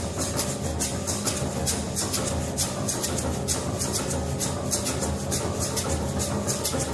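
Free improvisation for drum kit and grand piano: quick, steady, light strokes on the drum kit's cymbals over held piano notes.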